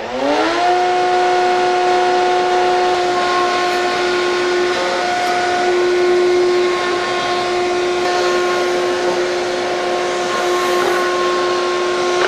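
Router in a router table fitted with a 1/8 inch roundover bit, winding up to speed in the first second and then running steadily with a strong pitched tone over a hiss.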